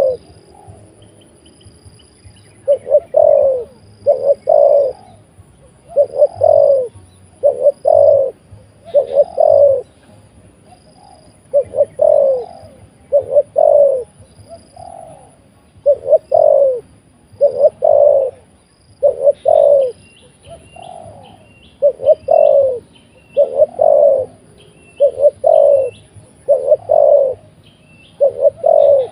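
Spotted dove cooing over and over in loud, close phrases of two or three falling notes, a phrase every second or two. Faint high chirps of small birds come in about two-thirds of the way through and again near the end.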